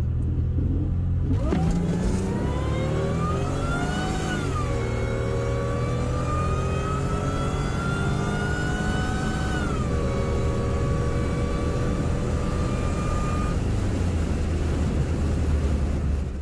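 Supercharged 3.8-litre (3800) V6 of a Pontiac Fiero, heard from inside the cabin on a drag-strip run. It idles briefly, launches about a second in, and revs up through the gears, with the pitch dropping at two upshifts about four and ten seconds in. After that the engine note holds fairly level.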